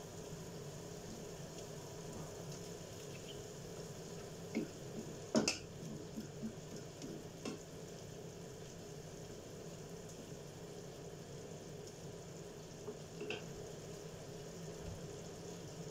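Chicken pieces frying gently in a nonstick frying pan with a low steady sizzle, while a wooden spatula stirs them and knocks against the pan several times about five to seven seconds in, the loudest knock among them, with one more light knock near the end.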